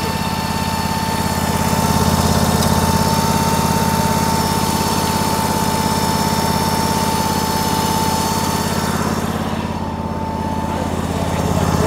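Small gas engine of a walk-behind shed mover running steadily as the machine is driven, with a steady high whine alongside it that drops away near the end.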